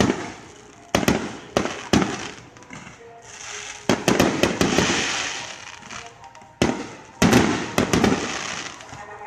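Aerial firework shells bursting: a string of sharp bangs at uneven intervals, some in quick succession, with a spell of hissing crackle about four to five seconds in.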